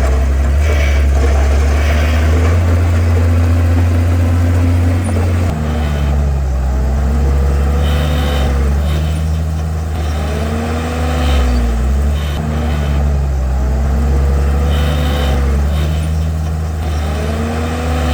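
Komatsu bulldozer's diesel engine working hard, a loud, deep steady drone; from about six seconds in a higher tone rises and falls every couple of seconds as the load changes.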